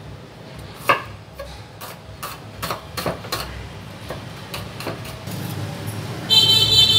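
Chef's knife chopping shallots on a wooden cutting board, a string of sharp knocks on the wood. Near the end a loud, high-pitched horn-like blare cuts in over the chopping.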